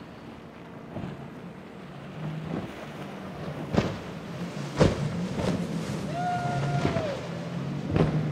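Outboard engines of a center-console boat running hard through rough inlet chop: a steady engine drone, with the hull slamming and spray crashing onto waves several times. About six seconds in, a short high whistle-like tone sounds for under a second and drops off at its end.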